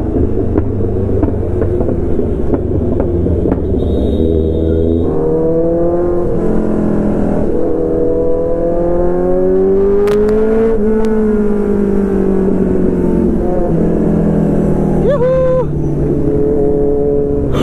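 Motorcycle engine under way, its pitch climbing steadily to a peak about eleven seconds in and then easing off as the throttle is rolled back. A couple of sharp cracks sound about ten seconds in, the exhaust pops the rider means to fire off while riding.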